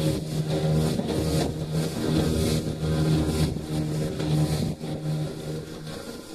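Small boat's outboard motor running under way, with wind and splashing water over it; the motor's note drops away near the end.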